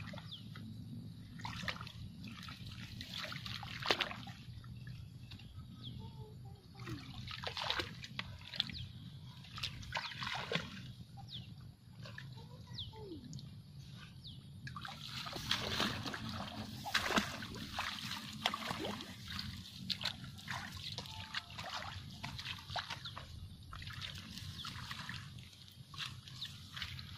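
Footsteps and rustling through wet grass and lotus leaves in a marshy field, with short swishes and splashes at irregular intervals, busiest about halfway through. A few brief pitched calls come and go in the background.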